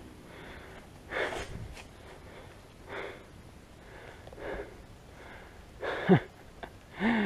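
A person breathing hard, with loud breaths roughly every second and a half, and two short voiced grunts near the end.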